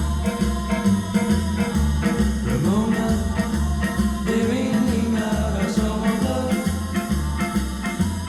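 Early-1960s pop record playing a passage without lyrics, with a steady bass pulse of about two notes a second under sliding melody lines.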